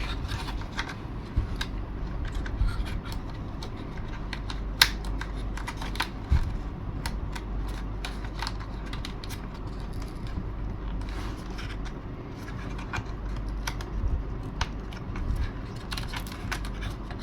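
Scattered light clicks, taps and scraping from small parts and hand tools being handled during bench work on a model aircraft, the sharpest click about five seconds in and a knock shortly after, over a steady low hum.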